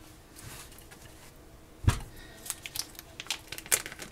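Kitchen scissors snipping through a plastic poultry bag: a quick run of sharp clicks and plastic crinkles. A single loud thump comes just before the snipping starts, about two seconds in.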